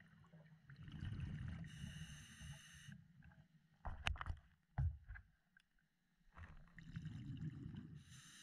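A scuba diver breathing through a regulator underwater: exhaled bubbles rumble, then the inhaled air hisses through the demand valve, twice over. A few sharp clicks fall between the two breaths.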